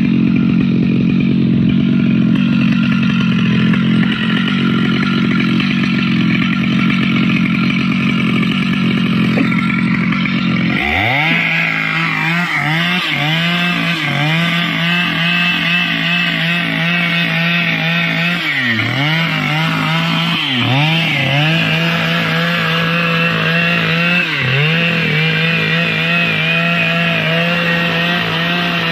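Stihl MS 881 two-stroke chainsaw running, then revved up sharply to full throttle about eleven seconds in and held there cutting mahogany wood. Its high engine note sags briefly several times as the chain loads in the cut.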